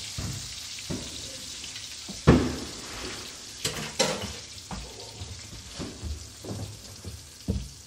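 Steady sizzle of food frying in a pan, with several sharp knocks and clatters of kitchenware over it. The loudest knock comes about two seconds in.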